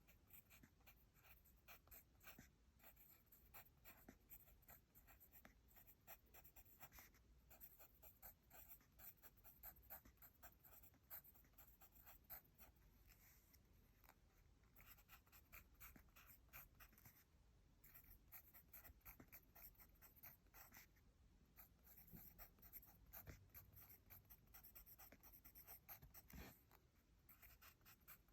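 Pencil writing by hand on paper: faint scratching strokes in quick runs, with short pauses between.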